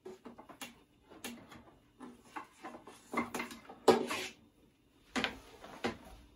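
Cables and connectors being handled and plugged in at the back of radio equipment: irregular clicks, rattles and rubbing, with the sharpest knock about four seconds in.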